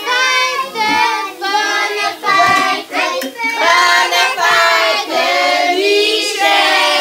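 A group of voices, children among them, singing a birthday song together.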